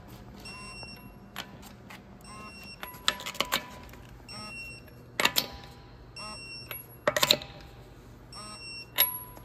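Click-type torque wrench tightening alloy-wheel lug nuts to 76 ft-lb: a little ratcheting, then a sharp metallic click as each nut reaches torque, repeated nut after nut every second or two.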